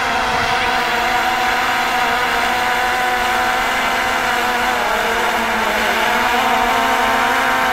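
Whine of the X35 GPS quadcopter's brushless motors and propellers as it flies close overhead, steady and many-toned, its pitch wavering slightly about halfway through.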